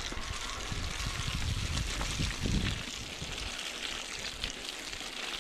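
Mountain bike tyres rolling down a wet, muddy trail, a steady rush of tyre and mud noise with small knocks and rattles from the bike over the ruts.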